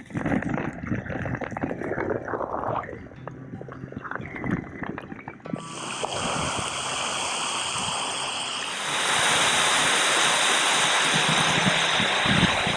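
Water splashing and lapping close by for the first five seconds or so, then the steady rush of a waterfall that gets louder about nine seconds in as the falls are reached.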